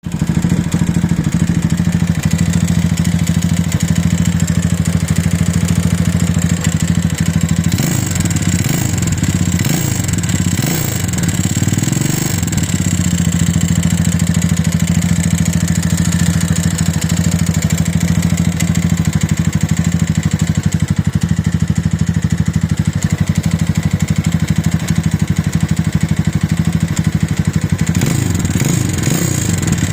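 Rebuilt 165FML single-cylinder four-stroke motorcycle engine running with a steady knock, the knock the owner hears after the rebuild and cannot account for. The running shifts briefly about eight seconds in and again near the end.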